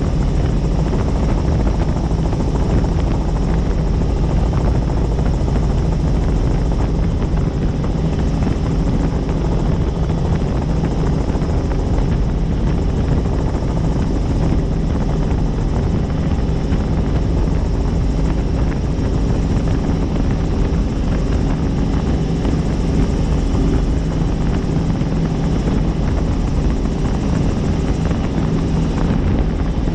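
Helicopter in steady flight, its rotor and engine running at an even, unchanging level.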